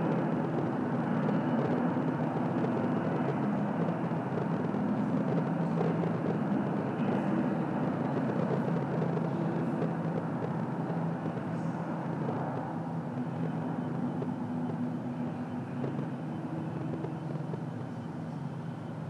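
Steady, unbroken rumble of rocket engines at liftoff from a film of rocket launches, played through loudspeakers and picked up by a phone.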